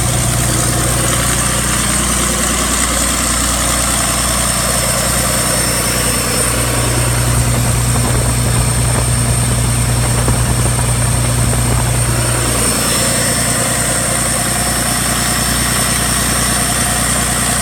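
Northern Lights M6108 six-cylinder marine diesel generator set running steadily at a constant speed. Its low hum shifts slightly about thirteen seconds in.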